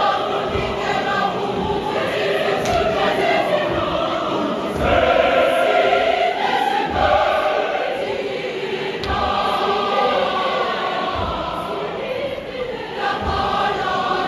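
Large church choir singing a composed choral piece, holding long chords in several voice parts that shift together every second or two.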